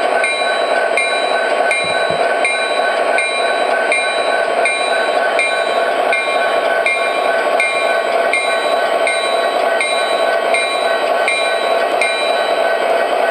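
MTH model locomotives' sound systems sounding their horns together in one continuous, steady chord, the result of a wrongly set-up four-engine consist, with running noise and a regular click about every three-quarters of a second.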